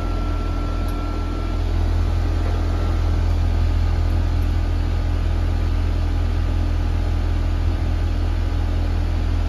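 Goodman air-conditioning condensing unit running: a steady low hum from the compressor under the even rush of the condenser fan, the system running in cooling after being recharged with R-410A.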